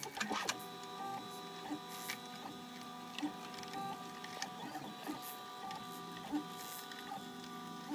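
3D printer's stepper motors printing, sounding a cluster of steady tones that change pitch every fraction of a second as the print head moves from move to move, with a few light clicks.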